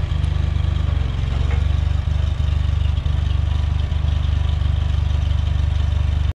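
1968 Ford 5000 tractor engine running steadily at low speed with a fast, even exhaust pulse, as the tractor moves slowly in reverse. The sound cuts off abruptly at the end.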